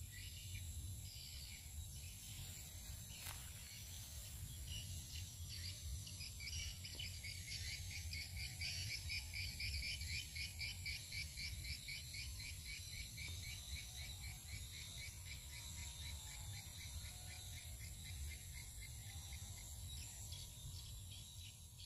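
Rural outdoor ambience: an insect chirping in a fast, even trill over a low steady rumble. The trill grows stronger about a quarter of the way in and fades again near the end.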